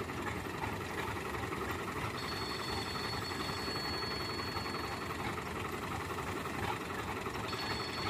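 Tractor engine running steadily, with a faint high whine that sets in about two seconds in, drops out around the middle and returns near the end.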